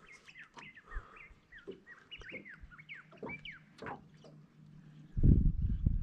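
Birds calling: many short chirps and quick slurred whistles. About five seconds in, a loud, uneven low rumble comes in.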